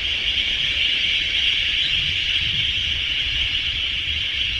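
Insects in a steady, shrill, unbroken chorus over a low rumble.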